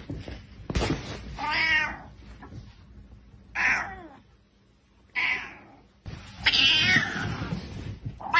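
Grey tabby cat meowing angrily, about four separate drawn-out calls with short pauses between, the last one longer and harsher.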